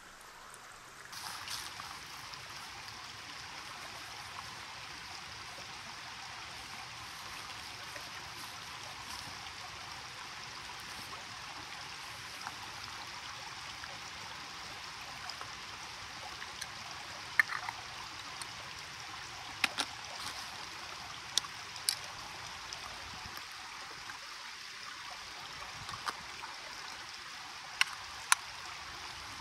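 Small forest stream babbling steadily over rocks. In the second half, a few short sharp clicks and knocks of camera gear being handled and taken out of a backpack.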